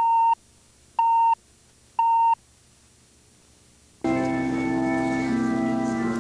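Three short, equal beeps one second apart from a video countdown leader, then organ music starts about four seconds in with sustained chords.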